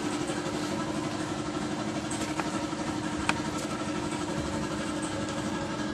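Small motorcycle engine idling steadily, with a faint click or two partway through.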